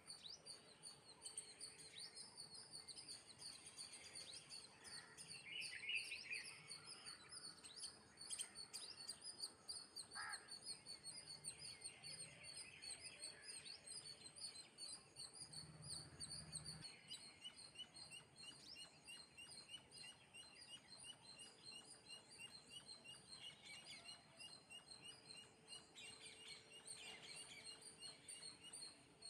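Small birds chirping and twittering faintly and continuously, with a quick, regular run of short repeated notes through the second half.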